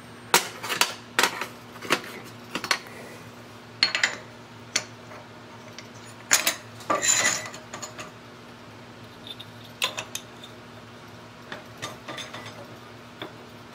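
Metal tooling clinking and clanking as it is handled and fitted at a milling machine, in irregular clusters of sharp knocks, over a steady low hum.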